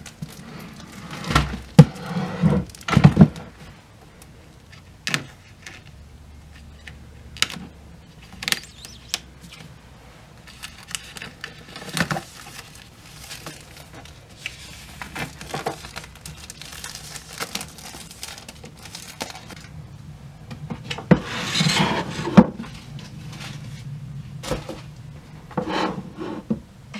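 Plastic shrink-wrap on a pack of stretched canvases crinkling and rustling as it is peeled off, with scattered knocks and taps as the wooden-framed canvases are handled. A longer, louder stretch of crinkling comes about three quarters of the way through.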